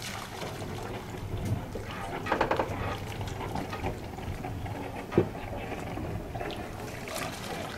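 Water lapping in a marina over a low, steady rumble, with a short distant call a little over two seconds in and a single sharp knock about five seconds in.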